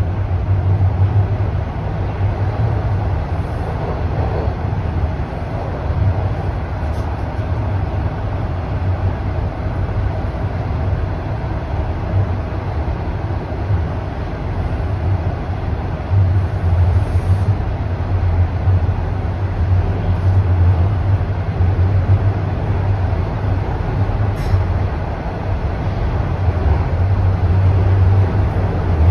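Toronto Rocket subway train running through a tunnel, heard from inside the car: a steady low rumble that swells and eases a little now and then.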